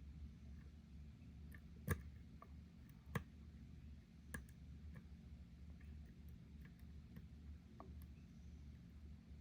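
Faint, scattered metallic clicks of a dimple pick working inside an Abus 751B/30 dimple padlock, three sharper clicks about a second apart in the first half and lighter ticks after, over a steady low hum.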